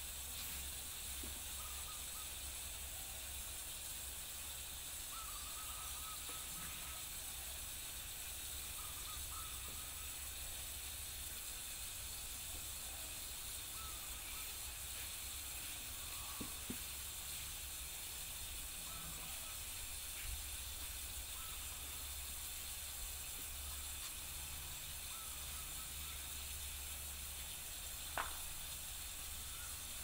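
Steady soft hiss of water trickling over a stone basin water feature, with a few faint short high notes and a couple of small clicks.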